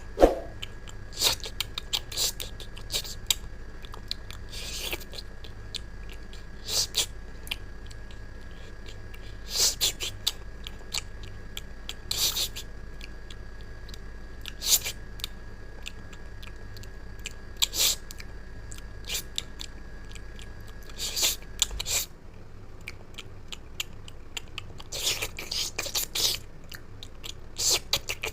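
A person chewing and crunching food with irregular sharp bites, over a faint steady hum that cuts off about three quarters of the way through.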